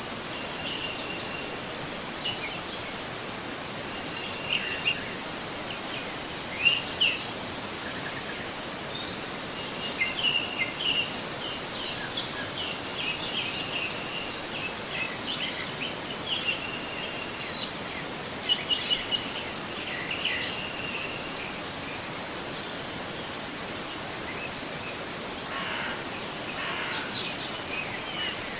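A forest river flowing steadily, with small birds chirping and singing over it in short, repeated calls, busiest in the middle and quieter near the end.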